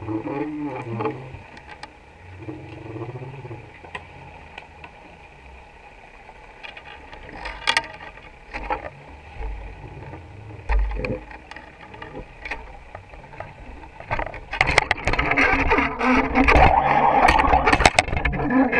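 Muffled underwater sound inside a GoPro housing on a fishing line: a low, wavering hum with scattered sharp clicks and knocks. About three-quarters of the way through it turns to a loud, steady rushing noise with many clicks as the line is hauled up with a black rockfish hooked on the lure.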